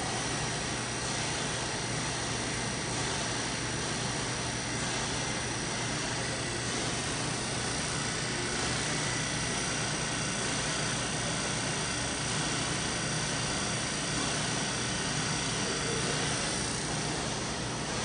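Steady drone and hiss of the running wiped-film short-path distillation system's machinery, with faint steady high-pitched whines over a low hum.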